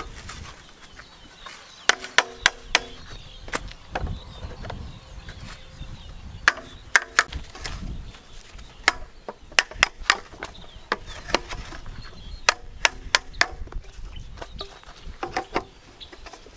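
Hammer knocking blue PVC pipes into their fittings, in quick groups of three to five sharp knocks every few seconds, each knock ringing briefly with a hollow pipe tone.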